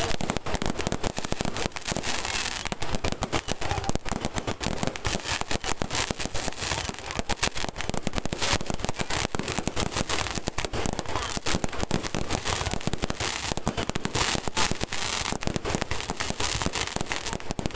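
Fireworks going off in a dense, unbroken run of rapid crackling pops.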